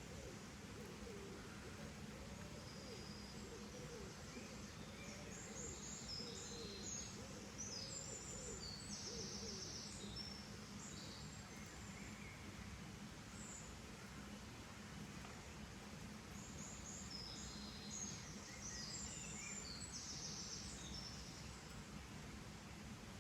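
Birds calling over a steady background hiss: a run of low, repeated curved calls in the first few seconds, then two spells of high chirping song, the second near the end.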